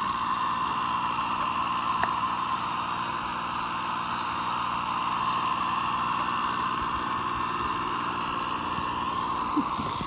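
Turbo burn barrel, a 6.0 Powerstroke turbocharger blowing air into a wood-fired barrel furnace, running steadily under boost: a constant jet-like rush of air and flame.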